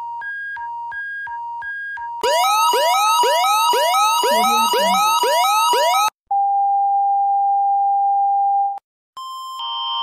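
Emergency alert alarm tones played one after another: an alternating two-note beep, then a loud siren of rising whoops repeating about twice a second over a two-note warble, then a single steady tone for about two and a half seconds, and another alert tone starting near the end.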